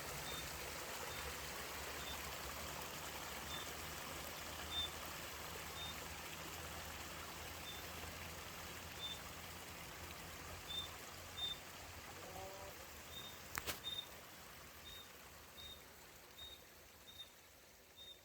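Spring water flowing steadily out of the mountainside, with a bird repeating a short high chirp over it. A single sharp click comes about three-quarters of the way through, and the whole sound fades slowly down toward the end.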